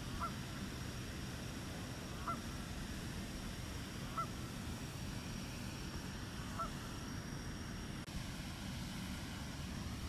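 White-breasted nuthatch giving short, nasal, honk-like calls, four single notes about two seconds apart, over a steady low background rumble.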